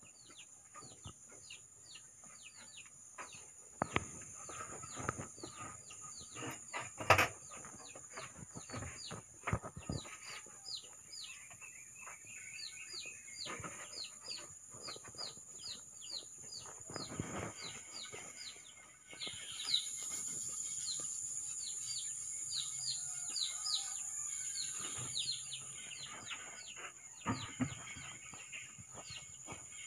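Chicks peeping over and over, a quick run of short falling peeps, two or three a second. Under them runs a steady high-pitched whine, with a few sharp knocks.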